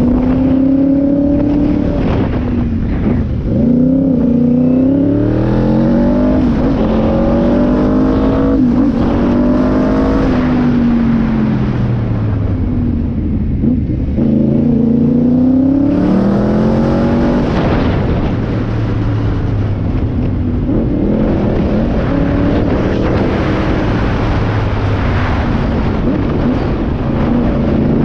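Yamaha R1 1000cc four-cylinder engine of a stage 1 tuned super quad under way, its note rising and falling several times as the throttle is opened and closed through the gears.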